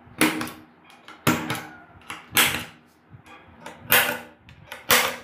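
Spring-loaded automatic center punch firing against 14-gauge iron and galvanized steel sheet, five sharp snaps about a second apart, each followed by a short ring. The punch is marking the centers of holes to be drilled.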